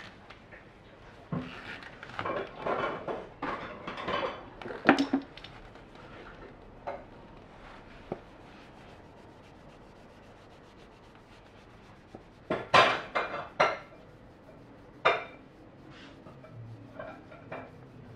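Cloth rubbed by hand over the Harley-Davidson Aermacchi Sprint 350's aluminium engine side cover while polishing it, heard as bursts of scrubbing with a few sharp knocks. A quieter stretch falls in the middle.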